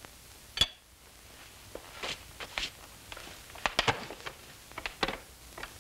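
Scattered light knocks and clicks of tableware and chairs at a small kitchen table, with one sharp click about half a second in.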